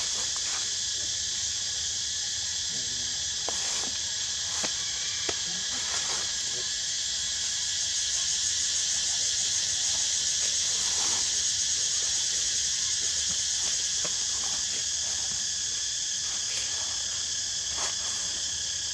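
Steady, high-pitched drone of an insect chorus, with a few faint clicks over it.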